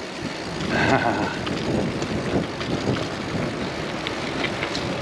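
Mountain bike rolling over a rough track: steady tyre noise with the bike rattling and scattered clicks.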